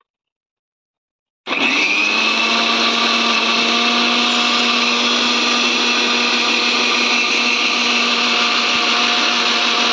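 Electric mixer grinder switches on abruptly about a second and a half in, and its motor and blades run steadily at full speed with a constant hum and whine.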